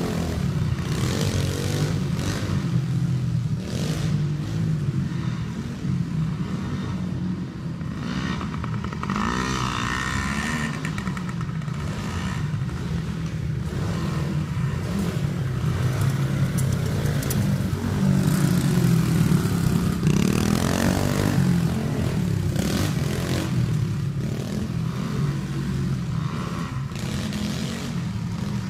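Dirt bike engines running and revving on a dirt track, the pitch rising and falling as the bikes ride, with stronger rev-ups about a third of the way in and again just past the middle.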